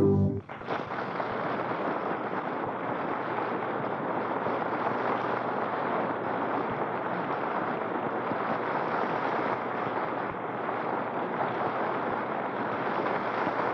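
Steady rushing hiss with no pitch, starting just after a short organ music sting cuts off and holding level throughout, with a few faint low ticks.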